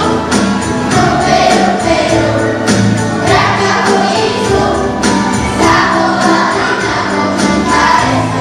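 Children's voices singing a song together over a backing track with a steady beat and jingling percussion.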